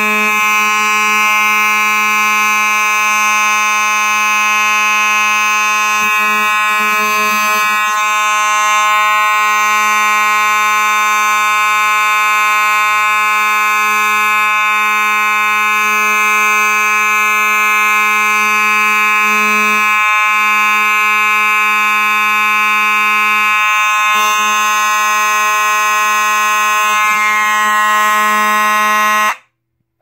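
Simplex 4903-9219 mechanical fire alarm horn sounding continuously with a steady, very loud, buzzing hum. It cuts off abruptly near the end.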